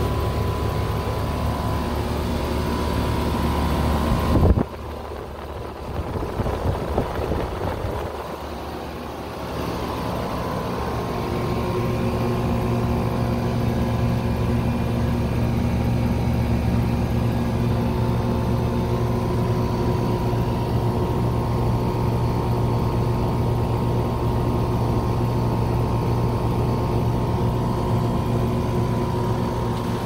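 2000 Ruud Achiever 3-ton air-conditioner condensing unit running, its Copeland scroll compressor and condenser fan giving a steady hum. About four and a half seconds in, a sharp click is followed by the hum dropping away abruptly. It comes back several seconds later and runs steadily again.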